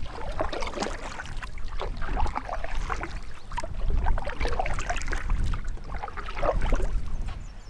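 Canoe being paddled: water splashing and trickling off the paddle blades and lapping at the hull in irregular spatters, over a steady low rumble.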